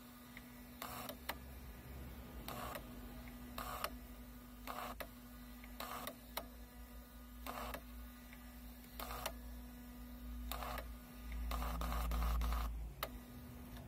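VAG 1551 diagnostic tester's built-in printer printing out a list of functions line by line: short bursts of printing about once a second, some in pairs, as the paper strip feeds out. Near the end comes a longer, louder stretch of printing and feeding.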